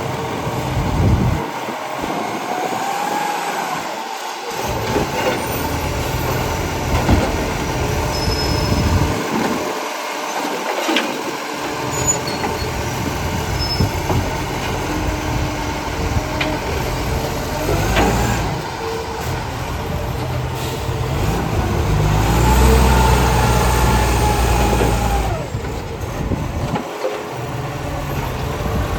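Garbage truck working: diesel engine running and revving, with whining tones that rise and fall as its hydraulics work, and a louder stretch of engine under load about three quarters of the way through.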